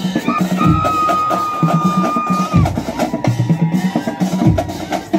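Marching band drumline playing a driving cadence on snare and bass drums, with deep bass-drum hits about every two seconds. A long, steady high note is held from about half a second in until two and a half seconds in.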